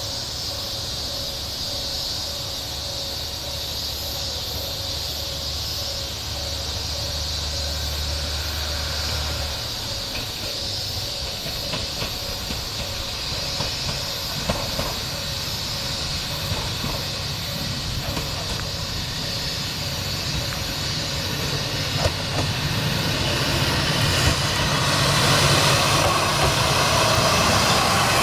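Joso Line diesel railcar No. 2201 approaching along the track with its engine running, growing steadily louder and passing close by over the last few seconds. A few sharp clicks of the wheels are heard along the way.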